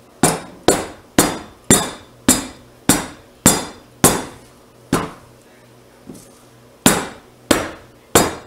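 Silicone loaf mold full of freshly poured cold-process soap batter being knocked down on a countertop again and again, settling and levelling the batter. Sharp knocks about every half second, with a pause of about two seconds midway, then the knocking resumes.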